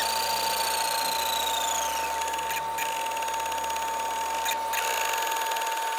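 Brother ScanNCut SDX1200 cutting machine running in draw mode, its motors whining steadily as the pen carriage moves back and forth filling in a shape. A higher whine falls in pitch over the first two seconds.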